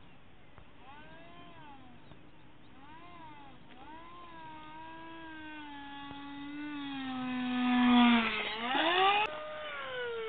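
Electric motor and propeller of a radio-controlled model plane whining in flight, the pitch swooping up and down with the throttle. It grows louder to a close pass about eight seconds in, where the pitch drops sharply and climbs again, then holds a steady higher whine.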